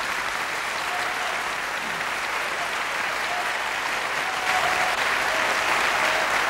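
Large audience applauding steadily, growing a little louder about four and a half seconds in.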